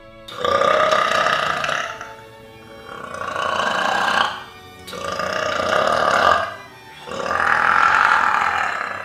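A woman belching loudly four times in a row, each belch long and drawn out, about a second and a half.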